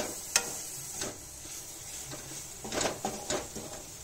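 A spatula scraping and knocking against a metal kadhai as crumbly roasted khoya is stirred, with a sharp knock about a third of a second in and a quick run of scrapes and knocks near the end.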